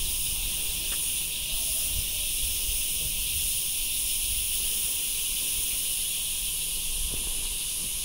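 Steady, high-pitched insect chorus droning without a break, a loud shrill hiss from the forest trees.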